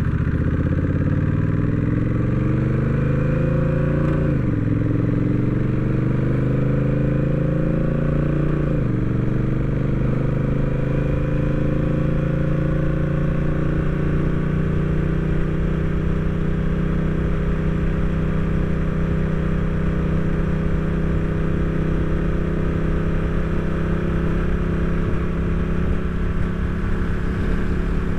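Honda Rebel 1100 DCT's parallel-twin engine accelerating. Its pitch climbs and then drops sharply twice, about four and nine seconds in, as the dual-clutch gearbox shifts up on its own, and then holds steady at cruising speed.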